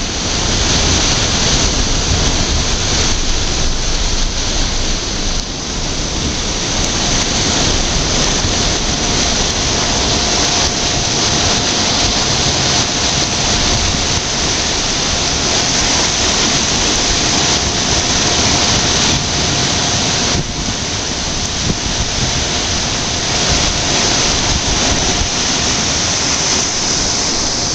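Large whirlpools over a navigation lock's filling intakes, water churning and being sucked down as the lock chamber fills: a loud, steady rushing rumble. A faint steady whine joins about seven seconds in.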